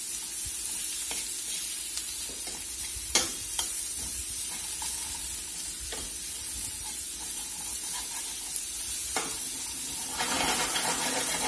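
Sliced onions sizzling in butter and oil in a stainless steel skillet while a metal spatula stirs and scrapes them, with a few sharp clicks of the spatula against the pan and louder scraping near the end.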